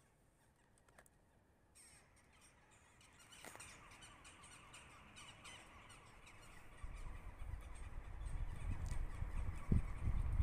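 A small battery-powered RC car approaching over paving stones: the motor runs and the wheels patter and rumble, growing steadily louder from about three seconds in after a near-silent start.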